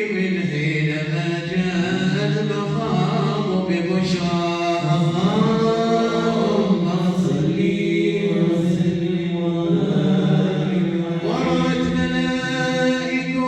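Voices chanting a devotional salawat, a prayer of blessing on the Prophet Muhammad, in long, drawn-out sung phrases.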